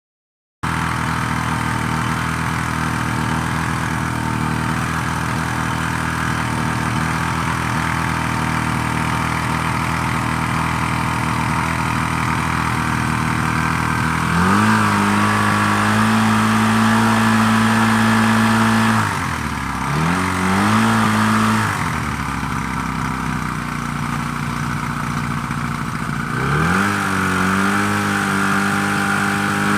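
Engine of a Tohatsu V50 pump running steadily, then revved up about halfway through. It drops back and picks up again twice, over a steady hiss of water jetting. This is a test run after a major overhaul: piston rings, vacuum pump and carburettor serviced.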